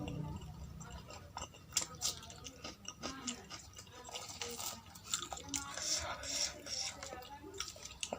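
Close-miked eating: chewing poori and potato curry, with irregular wet mouth smacks and small clicks.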